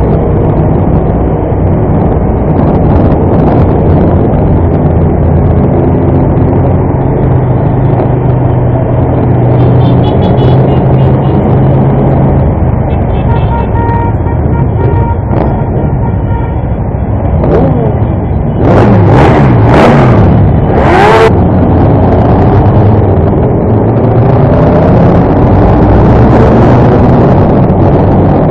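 Aprilia motorcycle engine running at low parade speed, heard from the rider's seat, mixed with the engines of other motorcycles riding close ahead. About two-thirds through, a few seconds of louder rushing noise with engines revving up and down.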